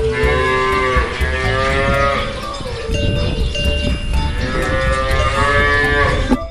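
Cow mooing: two long, drawn-out moos, the first fading out about two seconds in and the second starting a little past the middle and ending shortly before the end.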